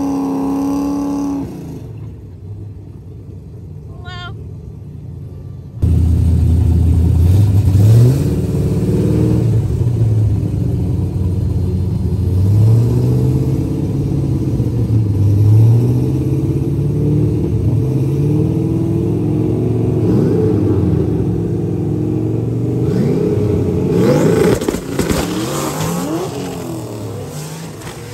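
A drift car's engine revved up and down repeatedly, its pitch rising and falling, then a louder rush of revs near the end as the rear tyres spin and smoke.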